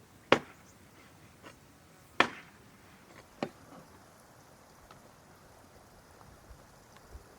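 Large wide-bladed knife chopping meat: three sharp strikes in the first few seconds, with a few fainter knocks between and after.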